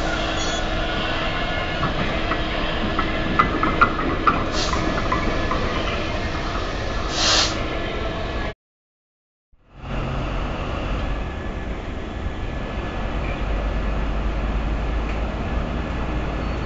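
Freightliner Class 66 diesel locomotive running past with its train of tank wagons, the engine giving a steady drone, with a few sharp wheel clicks over the rail joints and a short hiss near the middle. After a second of dead silence at a cut, a steady low rumble.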